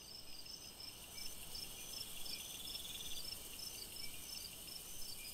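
Faint crickets chirping as a night ambience: a steady run of short, high chirps, with a faster trill a little past the middle.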